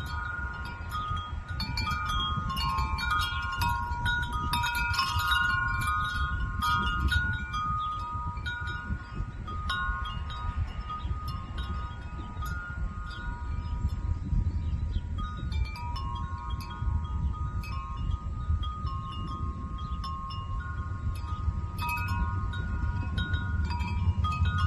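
Wind chimes ringing irregularly, their overlapping tones sounding now clustered, now sparse, over a steady low rumble.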